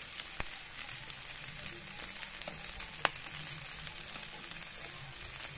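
Raw basmati rice frying in a little oil and ghee in a metal pot: a steady, light sizzle. A metal spatula turning the rice clicks against the pot a couple of times, most sharply about three seconds in.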